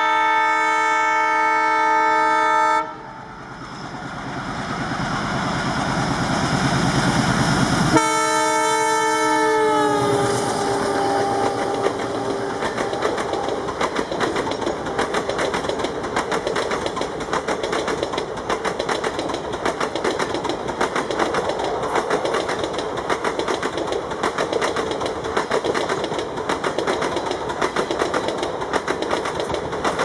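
WDM-3D diesel locomotive's air horn sounding a long blast that cuts off about three seconds in, then the ALCO diesel engine chugging louder as the train accelerates closer. A second horn blast comes about eight seconds in, its pitch falling as the locomotive passes. Then a long stretch of the coaches' wheels clattering rhythmically over the rail joints as the express runs by.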